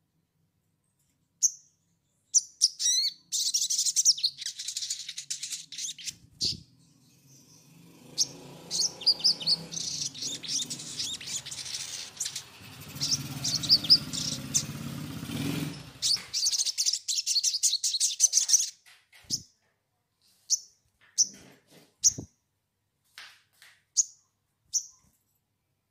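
Caged songbird singing in rapid, high-pitched chirping and twittering phrases, then breaking into scattered single short calls for the last several seconds. A low hum runs under the song for several seconds in the middle.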